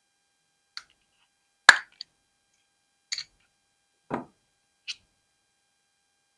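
Small, separate clicks and taps of metal watchmaker's tools against pocket-watch parts while the movement is being taken apart, about six in all. The sharpest is just under two seconds in, and a duller knock comes about four seconds in.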